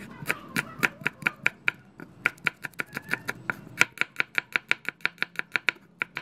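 Cleaver chopping red and green chillies and garlic on a wooden cutting board: quick, even knocks of the blade on the board, about five a second, with a short pause about two seconds in.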